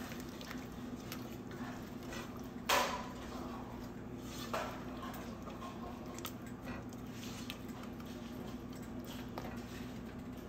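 Silicone spatula stirring a thick curry gravy in a nonstick pot, knocking against the pot twice, loudest about three seconds in, with a few lighter clicks. A steady low hum runs underneath.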